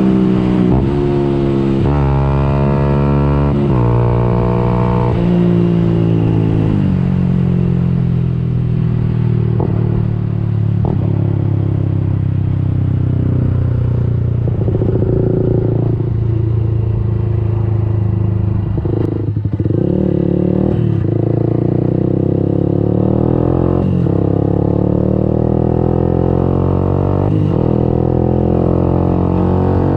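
Yamaha YZF-R 125's single-cylinder four-stroke engine, exhaust open through a Radical Racing pipe with the dB killer removed, on the move under throttle. Revs climb and drop back at quick gear changes in the first few seconds, then rise and fall with the riding.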